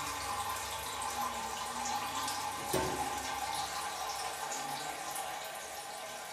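Water running steadily in a small tiled room, with one sharp knock about three seconds in.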